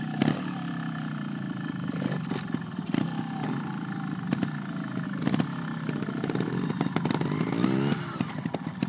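Trials motorcycle engine running at low revs with short blips of throttle, revving up near the end as the front wheel is lifted onto a rock. Sharp knocks and clatter are scattered through it.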